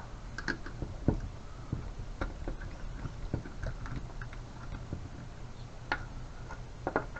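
Scattered light clicks and taps of a floor fan's plastic parts being handled and taken apart by hand.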